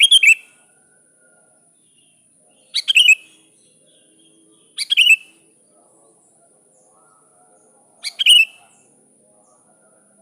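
Sooty-headed bulbul calling: four short, loud phrases a few seconds apart, each a quick run of notes, over a faint steady high hiss.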